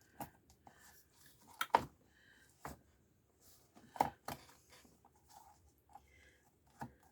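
Hardcover book being worked apart by hand: irregular sharp clicks and knocks with faint paper rustling as the cover is pried loose from the sewn and glued pages, the loudest knocks a little under two seconds in and about four seconds in.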